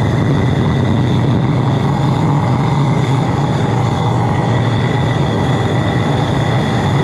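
Little Dragon high-velocity diesel burner firing into a small foundry, running with a loud, steady roar and a faint high whistle over it.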